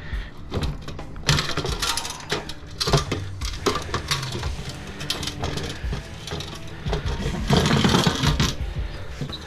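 Metal parts of a small light fixture clinking and clattering as it is handled and taken apart for scrap: irregular sharp clanks, busiest about three quarters of the way through.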